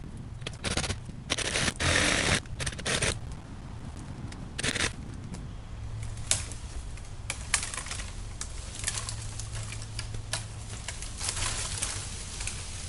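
A cordless reciprocating saw with a long wood blade (DeWalt DCS380) cutting into a buckthorn trunk. It comes in loud, ragged bursts over the first three seconds and again near five seconds, then runs steadily through the cut with a rapid clatter from about six seconds on.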